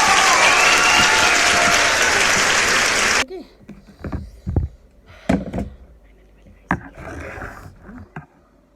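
Loud applause and cheering from a crowd, cutting off suddenly about three seconds in. After that, a few scattered light knocks and clicks.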